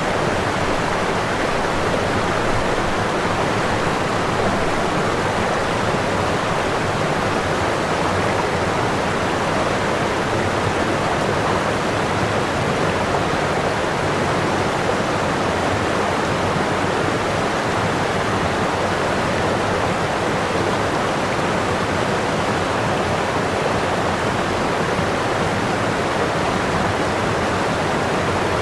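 Waterfall: water falling and splashing in a steady, loud rush with no breaks or changes.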